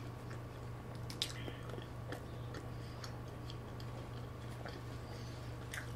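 A person chewing a mouthful of burger with a soft bun, lettuce and avocado: faint, irregular wet mouth clicks, a few slightly sharper about a second in and near the end, over a steady low hum.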